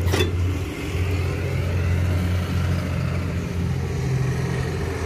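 Diesel engine of heavy equipment idling steadily, with a short metallic click right at the start.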